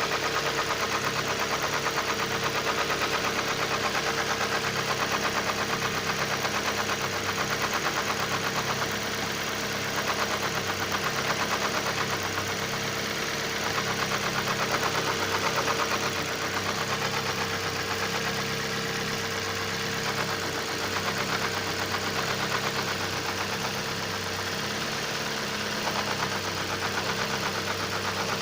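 Mazda 3 engine running at idle with a steady, rapid knocking from the intake manifold flaps: the flaps are rattling in the manifold.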